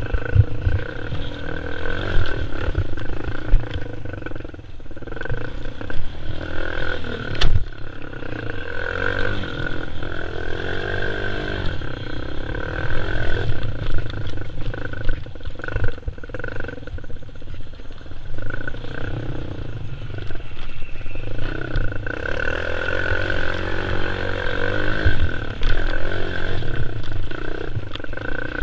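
Quad bike (ATV) engine running and revving up and down as it is ridden over a rough dirt track, with wind and jolts buffeting the microphone. A sharp knock about seven and a half seconds in.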